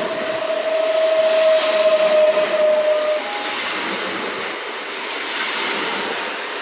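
PKP Intercity electric multiple unit moving slowly along the platform: a steady hiss of running noise with a steady electric whine that cuts off about three seconds in.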